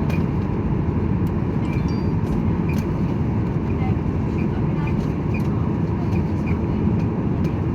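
Steady rumble of jet engines and airflow heard inside the cabin of a Boeing 737-800, with faint scattered clicks.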